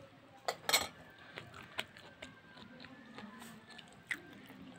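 Scattered light clicks and clinks of small hard objects, the loudest a cluster about half a second to a second in, over a faint low murmur.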